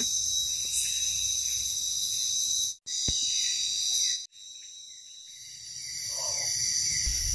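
Night insects in tropical forest, a steady high-pitched chorus of chirring. It breaks off briefly twice about three and four seconds in.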